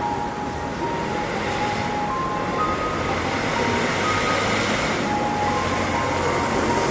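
Steady city traffic noise, with a few brief high-pitched tones coming and going over it.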